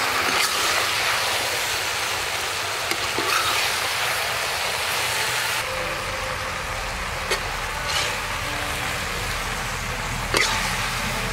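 Sponge gourd strips and quail stir-frying in a wok: a steady sizzle, with a metal spatula scraping and clinking against the pan a few times.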